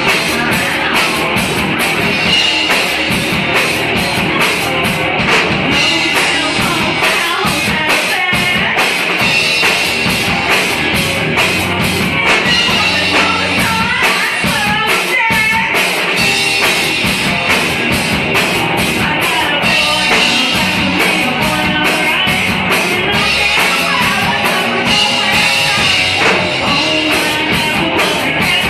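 Live rock band playing: a vocalist singing over electric guitar and a drum kit with steady cymbal and drum hits.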